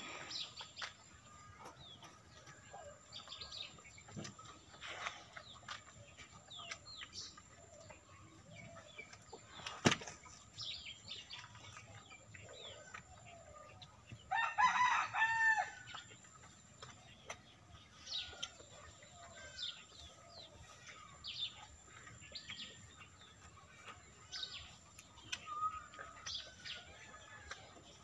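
Small birds chirping on and off, and a rooster crows once, about halfway through. A single sharp click comes about a third of the way in.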